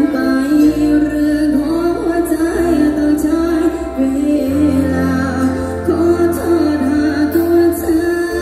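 Live band music through a PA system, a woman singing a drawn-out melody over held bass notes.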